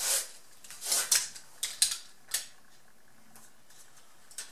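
Light clicks and rustles of a metal exhaust hanger and measuring tool being handled during measuring. A few sharp ticks fall in the first two and a half seconds.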